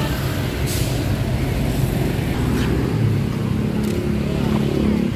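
Road traffic on a busy street: cars and motorcycles running past in a steady drone, with a few short clicks.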